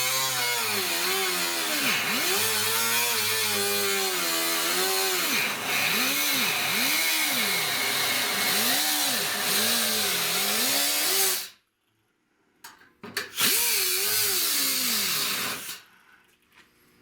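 Small high-speed power tool cutting through rusty car-door sheet metal, its whine dipping and rising again and again as the cut loads it. It stops about eleven seconds in, starts briefly, runs again for a couple of seconds and cuts off near the end.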